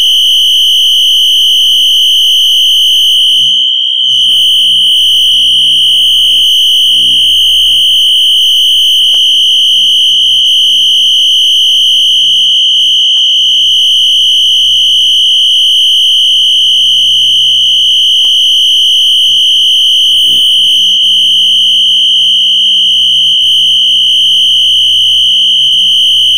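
Wheelock NS fire alarm horn sounding continuously: one loud, steady high tone with no pulsing, which dips briefly about four seconds in.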